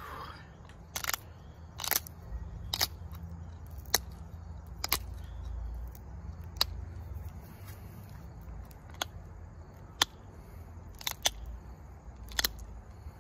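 Pressure flaking a flint point with a copper-tipped pressure flaker: sharp single clicks, about one a second at uneven spacing, as small flakes snap off the edge while the tip is reshaped. A low rumble runs underneath.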